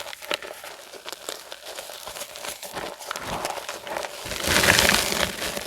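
Dyed, reformed gym chalk being crushed and crumbled: a dense crackle of small crunches, with a louder crunching stretch about four and a half seconds in.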